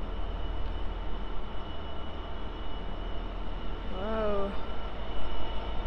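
Diesel freight locomotive idling at a standstill: a steady low rumble with a faint constant whine above it. A short voice-like sound comes about four seconds in.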